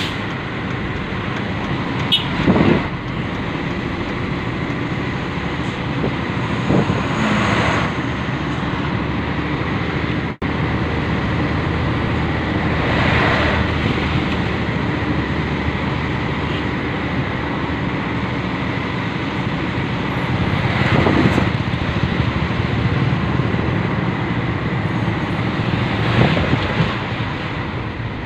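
Heavy self-loader truck running along a road: a steady engine and road-noise rumble, with a few brief swells every several seconds.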